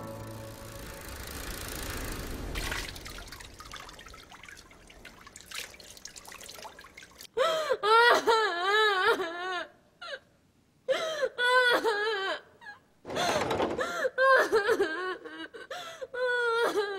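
A girl crying hard: long, wavering, wailing sobs broken by short pauses, starting about seven seconds in after a faint fading hiss.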